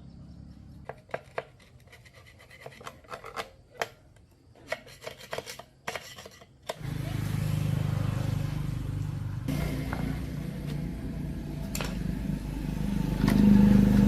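Scattered clicks and taps of small metal parts and tools being handled. Then, about seven seconds in, a steady motor starts running and grows louder near the end, as of a power tool working on the parts.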